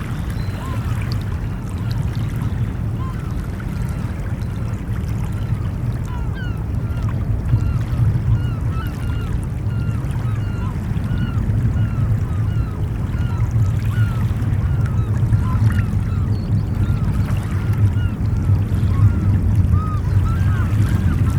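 Ocean surf as a steady low wash, with a flock of birds giving many short calls over it, growing denser toward the end.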